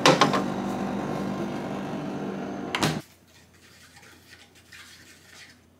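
A plastic takeout container knocks against a refrigerator shelf as it is pushed in, over a steady electrical hum. A sharp knock comes just before three seconds in, then the hum cuts off abruptly, leaving only faint clinks of a spoon in a small bowl.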